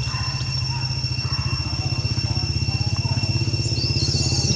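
A small engine running steadily at idle, with a low, rapidly pulsing note, over a steady high-pitched whine. A few high, wavering squeaks come near the end.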